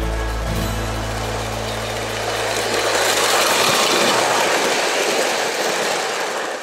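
Model steam locomotive running toward the camera: a low steady hum fades over the first couple of seconds while a broad hiss swells, loudest around the middle, then cuts off abruptly at the end.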